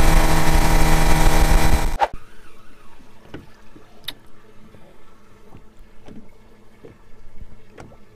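Yamaha four-stroke outboard motor running at speed with the boat planing, mixed with wind and rushing wake water. It cuts off suddenly about two seconds in, leaving a much quieter stretch with a few faint clicks.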